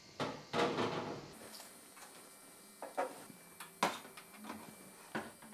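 A pepper grinder and plates of ingredients being set down on a stainless steel counter: a handful of separate knocks and clunks, with a longer clatter in the first second and the loudest knock about four seconds in.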